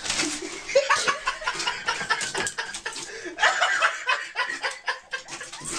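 A person laughing in short, choppy bursts.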